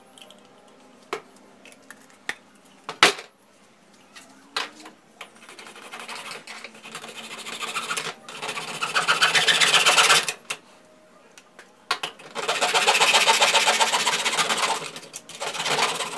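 Rapid rasping of a wooden-handled hand tool worked against a white PVC pipe fitting, in two long spells with a pause of about two seconds between them; the first builds up before stopping. A few sharp knocks come in the first three seconds, the loudest about three seconds in.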